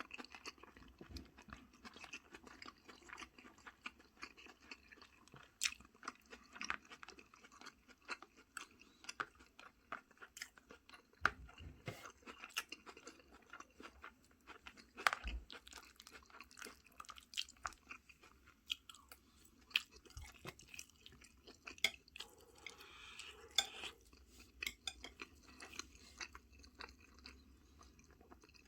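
Close-miked chewing of food: a steady run of small irregular clicks and crunches from the mouth, with a few louder bites and a short rustling or slurping patch near the end.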